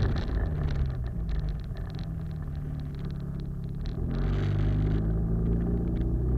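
Mitsubishi Lancer Evolution X's turbocharged 2.0-litre four-cylinder through a 3-inch Scorpion turbo-back exhaust with the catalytic converter removed, heard close to the tailpipe while driving. The exhaust note drops in pitch and level over the first couple of seconds, then rises again from about four seconds in as the engine speed picks up.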